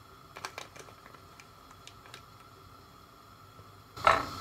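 A metal spoon scooping cocoa powder from a foil packet, with a few light clicks and rustles. Near the end comes a loud clink and scrape as the spoon knocks against the stainless steel saucepan.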